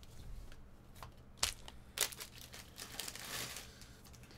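Plastic crinkling from trading cards in plastic sleeves being handled: a few short, sharp rustles in the first two seconds, then a longer crinkle past the middle.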